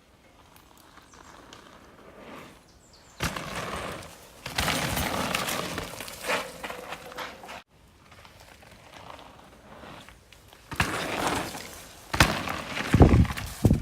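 Crunching, clattering noise of dirt and gravel on a trail, in two stretches with a sudden cut between them, the second ending in a few heavy knocks.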